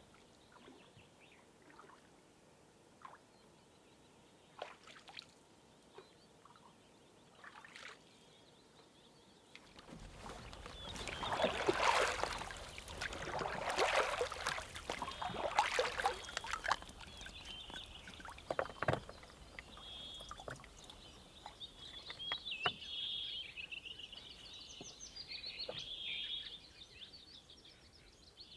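Lake water splashing and pouring as a bottle is dipped over the side of a canoe and filled, in several splashy surges through the middle. Before it there are only a few faint drips and knocks; afterwards a steady high chirping of birds carries on.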